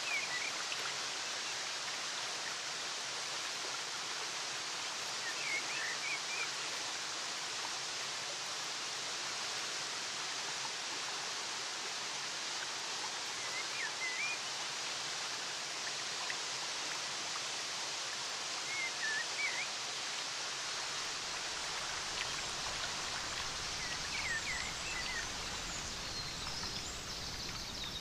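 Steady rush of running water from a waterfall or stream, with small birds giving short chirps in brief clusters every few seconds. A low rumble joins in about two-thirds of the way through.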